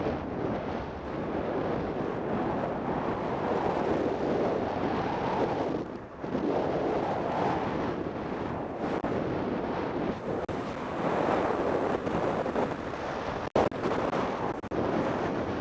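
Wind rushing over the microphone of a camera mounted on a velomobile's shell while riding at speed. The rush swells and eases, dips briefly about six seconds in, and cuts out for an instant near the end.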